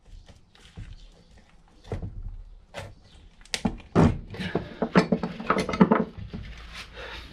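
Metal knocks and clunks as a CV joint is worked and knocked off the end of a car driveshaft on a workbench: a scattered run of sharp knocks with short ringing, thickest from about three and a half to six and a half seconds in.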